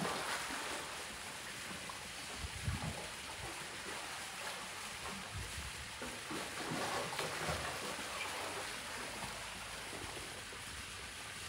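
Steady rush of river water flowing past, with a few low bumps.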